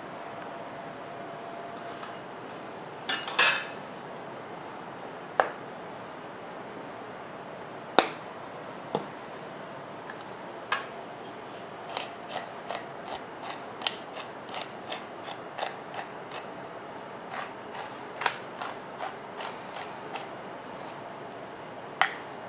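A few sharp knocks and scrapes of a metal bench scraper on a wooden cutting board, then a hand-twisted spice grinder working over a bowl, giving a quick run of small grinding clicks from about halfway through.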